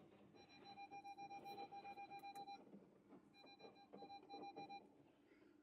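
Rapid electronic beeping from the Audi R8's warning system, about five short beeps a second in two runs with a brief pause between them, faint against quiet cabin sound.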